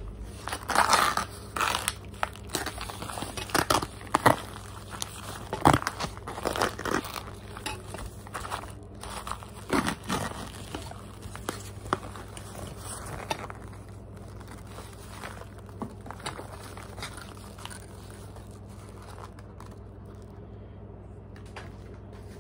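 Plastic bag crinkling and crackling as chunks of Argo cornstarch are shaken out of it into a glass bowl, with sharp irregular crackles and rustles. The handling noise dies down about fourteen seconds in.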